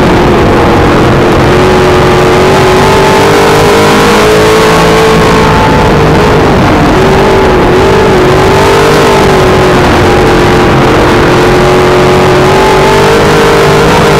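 Dirt modified race car's V8 engine at racing speed, heard loud from inside the cockpit. The engine note holds steady, wavers and dips briefly twice about six to seven and a half seconds in, then climbs near the end.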